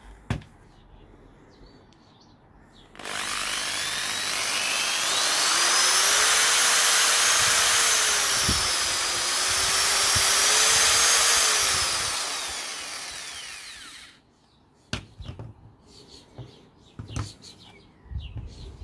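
Skil corded two-speed electric drill running with no load. About three seconds in the motor starts suddenly and its whine climbs in pitch, dips briefly, rises again, then falls as it winds down and stops some eleven seconds later. A few light handling knocks come before and after.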